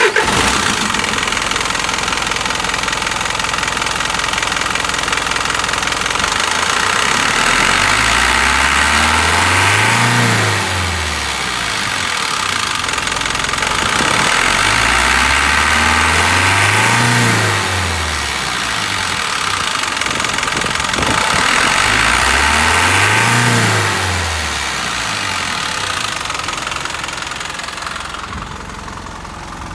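Toyota Dyna truck's S05C diesel engine catching right at the start, then idling and revved three times, each rev climbing and dropping back over a few seconds. It grows fainter near the end.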